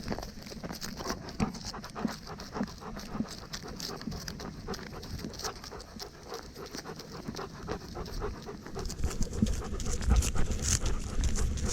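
A dog panting close to the microphone in quick, repeated breaths. From about nine seconds in, a louder low rumble and crackle join it.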